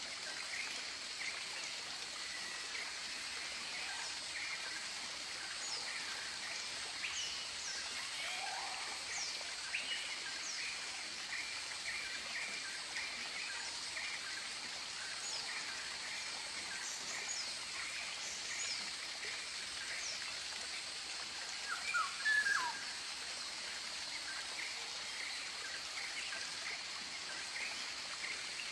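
Tropical birds chirping and calling, many short calls over a steady high-pitched hiss, with one louder call about 22 seconds in.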